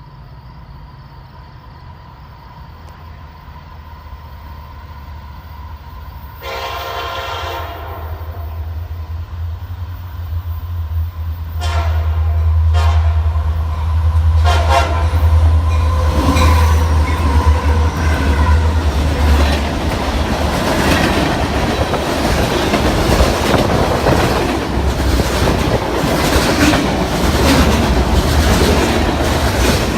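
Diesel freight locomotive approaching with its engine rumbling louder, sounding its air horn once about six seconds in, then several short horn blasts over the next few seconds. From about halfway on the train passes close by, its wheels clacking over the rail joints.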